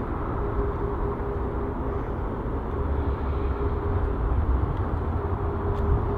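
Boeing 737-8 MAX's CFM LEAP-1B jet engines at taxi idle, heard from a distance: a steady low rumble with a steady hum on top.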